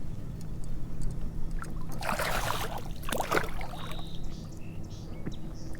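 Water splashing in two short bursts, about two seconds in and again about three seconds in, as a hooked bass thrashes at the surface beside the kayak.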